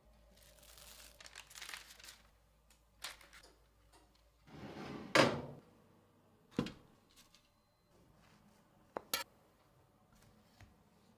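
Plastic cling film crinkling over dough on a baking tray, followed by kitchen handling noises: a louder rustling scrape about five seconds in, a thunk, and two quick knocks near the end.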